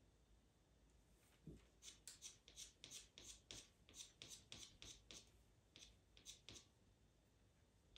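Faint scratching of a pastel pencil on sanded pastel paper in a run of short, quick strokes, about four a second, starting about two seconds in and stopping a little more than a second before the end.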